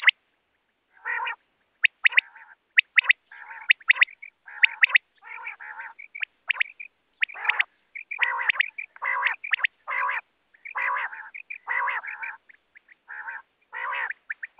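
Common quail (Coturnix coturnix) calling: short, sharp, high notes in quick pairs and triplets, mixed with longer, lower, rougher notes that recur throughout.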